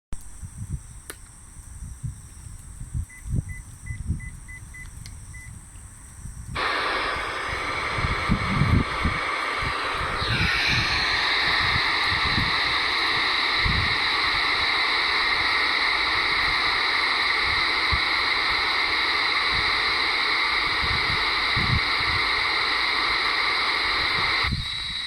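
Handheld wideband radio receiver: a quick row of short electronic beeps, then about six seconds in a steady radio hiss cuts in suddenly from its speaker as the municipal disaster-warning radio channel opens, received weakly and about 10 kHz off-frequency. Low thumps on the microphone throughout.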